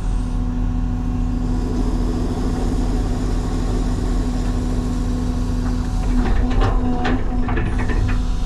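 CAT 323 excavator running steadily with a constant engine and hydraulic hum, with a few short knocks and scrapes near the end.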